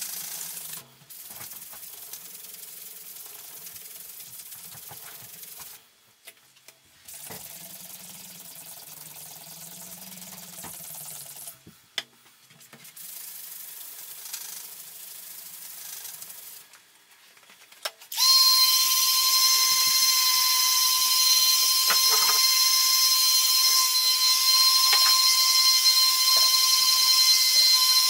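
A small pad scrubbing across a silkscreen's mesh, a hiss in strokes with brief pauses, as the drawing fluid is washed out through the screen filler. About two-thirds in, a loud, steady high whine over a strong hiss starts suddenly and drowns it.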